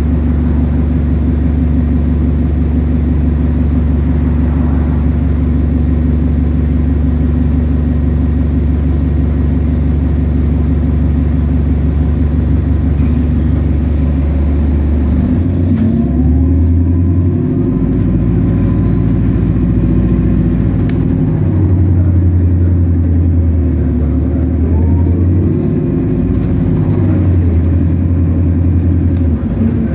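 Bus engine and drivetrain running as the bus drives along. The drone is steady for the first half, then from about halfway the engine note rises and drops in steps several times as the bus accelerates and changes gear.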